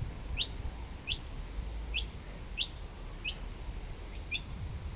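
Noisy miner chick calling: a short, high, thin note that sweeps downward, repeated about every two-thirds of a second, the last few fainter.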